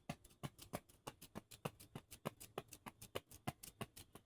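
A slinky being worked back and forth in the hands, its coils clicking softly in a quick, steady rhythm of about five clicks a second.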